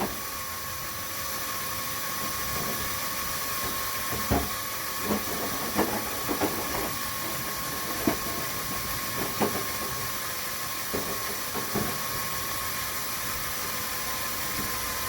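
Electric drill running steadily with a small bit cutting into a broken, rusted-in steel bolt: a steady whine over a hiss, with a few faint clicks.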